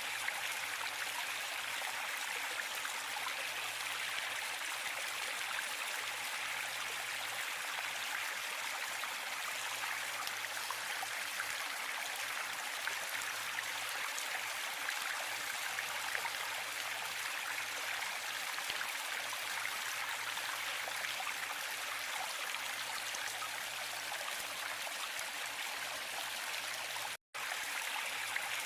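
Waterfall: water splashing and rushing in a steady, even hiss. It cuts out completely for a fraction of a second near the end.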